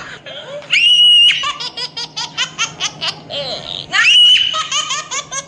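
High-pitched laughter: a quick run of short laughing pulses, broken by two long, shrill squeals, one about a second in and one about four seconds in.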